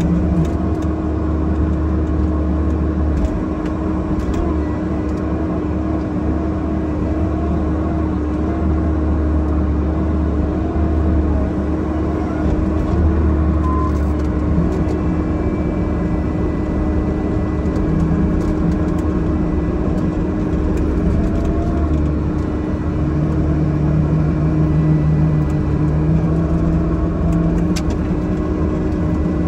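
Bobcat E50 mini excavator's diesel engine running steadily with a constant hum, heard from inside the closed cab while the boom and bucket are worked. Its lower tones swell and fade now and then as the hydraulics take load.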